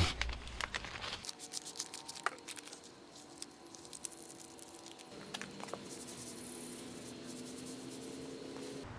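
Faint crinkling, rustling and clicking of a plastic zip-top bag being handled, pressed flat and sealed, with a faint steady hum of several tones in the second half.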